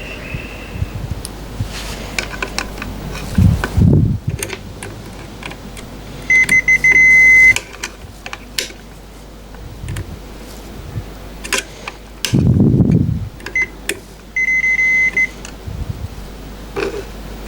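Multimeter continuity tester beeping: a steady high beep lasting about a second, then a few shorter beeps later, as the probes close circuits in the machine's wiring during a check before power-up. Scattered clicks and a couple of dull knocks from handling the wires and probes.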